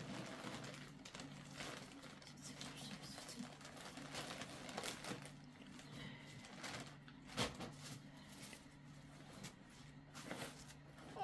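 Soft rustling and crinkling of cloth and plastic bags being handled, with scattered light clicks and taps, over a faint steady low hum.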